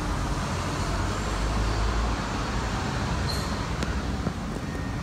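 Steady low background rumble, like road traffic, with a couple of faint clicks a little after three seconds in.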